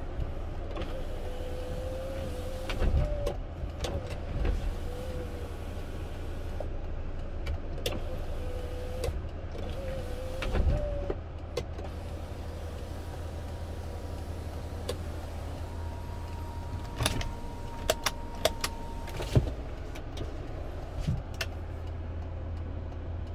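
Inside a Hyundai car's cabin: a steady low hum of the idling car, a faint wavering motor whine, and scattered sharp switch clicks, several of them in quick succession in the second half.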